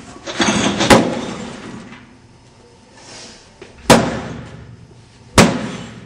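Three loud, sharp crashes, about a second in, near four seconds and near five and a half seconds, each trailing off in a long echo. A shorter rush of noise leads into the first.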